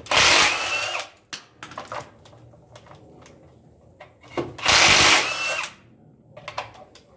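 Impact wrench with a 21 mm socket loosening the wheel's lug nuts: two loud bursts of hammering about a second long, a few seconds apart, each with a faint rising whine. Light metallic clicks come between the bursts.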